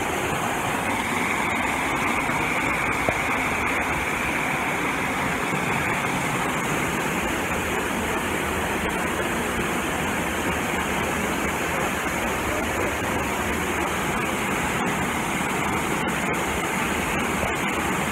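Waterfall: a heavy curtain of water falling onto rock, heard close up from the path behind it, a steady unbroken rush.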